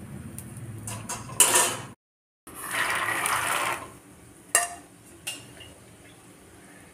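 A slotted steel spoon clinks against a steel bowl twice as fried peanuts are tipped out. After a short break in the sound, peanuts deep-frying in hot oil sizzle for about a second, then the sizzle fades to faint, with a few light clinks.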